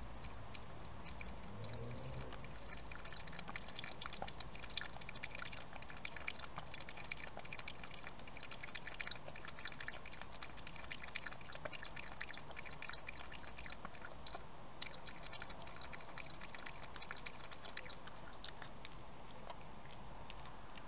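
A cat feeding at a shallow dish, its mouth making a quick, irregular run of small clicks, stopping near the end as it lifts its head.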